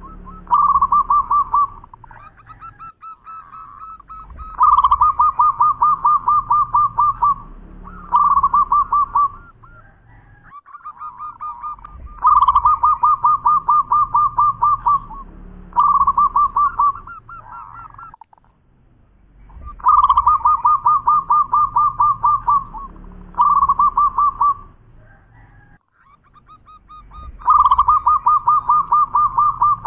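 Zebra dove singing: rapid trills of staccato cooing notes. Each bout is a long phrase followed by a shorter one, and the pair repeats every several seconds.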